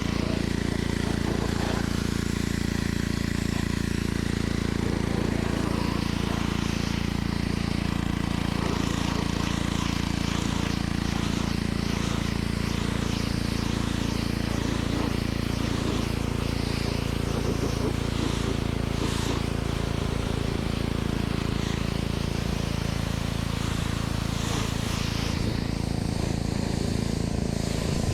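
Pressure washer running steadily, its motor and pump giving a constant hum with the hiss of the water spray over it.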